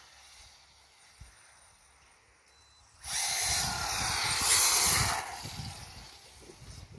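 HSP Flying Fish 1/10 scale brushless RC drift car running at speed on asphalt and spinning out after a slight steering correction. Its motor and tyres make a loud rushing hiss that starts suddenly about three seconds in and fades near the end.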